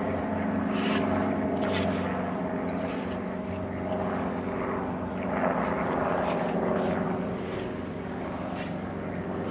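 Small light helicopter flying low overhead: a steady drone of engine and rotor, easing slightly near the end as it moves away.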